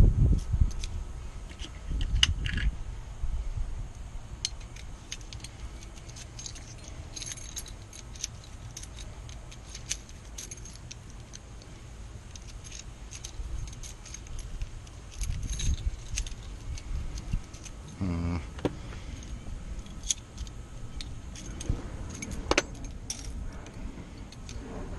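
Keys and small metal lock parts jingling and clicking by hand while Kwikset lock cylinders are rekeyed, in scattered light ticks.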